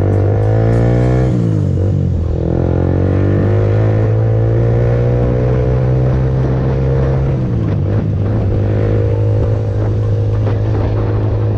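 Honda CBR150R's single-cylinder engine through an aftermarket Akrapovič exhaust, accelerating through the gears: the revs climb, drop at an upshift a little over a second in, climb steadily again, drop at another upshift near eight seconds, then hold steady.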